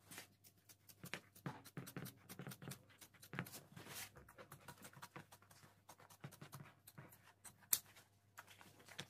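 Faint rustling and creasing of a sheet of leather being lifted and flexed by hand, a run of quick soft scrapes and ticks, with one sharp click late on.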